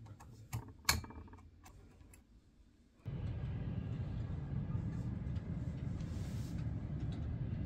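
A few faint clicks, then, about three seconds in, a steady low rumble of distant city traffic.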